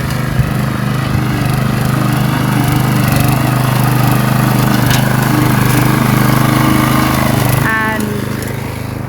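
Small petrol engine of a grass-cutting machine running steadily under load while cutting long meadow grass; its note drops about eight seconds in.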